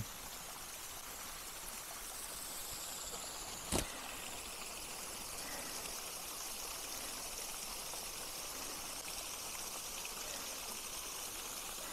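Small waterfall spilling out of rocks, a steady rush of trickling, splashing water. A single short click about four seconds in.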